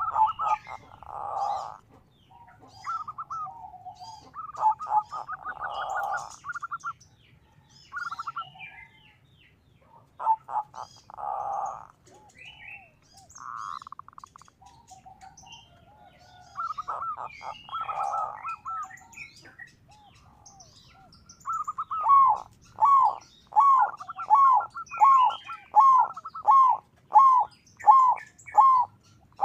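Zebra dove (perkutut) cooing in repeated phrases, ending in a long run of evenly spaced coos at about two a second. Small birds chirp faintly in the background.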